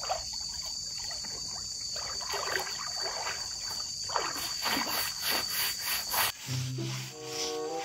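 A long-handled scrubbing brush rubbing over a plastic tarp pool liner under shallow water, in repeated scrubbing strokes, over a steady high insect drone. Background music comes in near the end.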